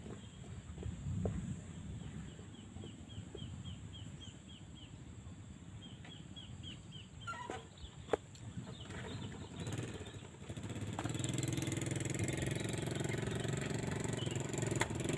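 Motorcycle engine running low and uneven, then louder and steadier from about eleven seconds in.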